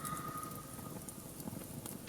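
Wood fire crackling with scattered small pops over a low rumble of burning flames. A thin steady whistle sounds for about the first second, then fades.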